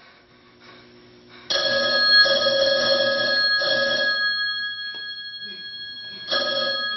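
A telephone bell ringing: a long ring starting about a second and a half in and slowly dying away, then a second ring near the end.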